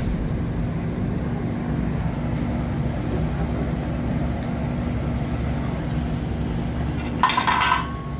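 Steady low rumble and hum of a busy restaurant dining room. About seven seconds in there is a short burst of clinking dishes and utensils, with a brief ringing note.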